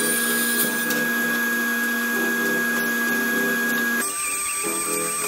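Ridgid R4512 10-inch table saw running and ripping plywood, a steady motor whine with blade noise. The whine shifts abruptly to a different pitch about four seconds in.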